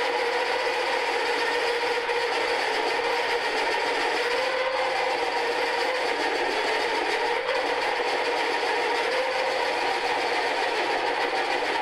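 Milling machine's angle head driving a large drill into the steel end of a truck tie rod: a steady scraping, grinding cut with the machine's drive running under load. The motor is fed at a very low frequency to keep the spindle slow so the drill doesn't jam.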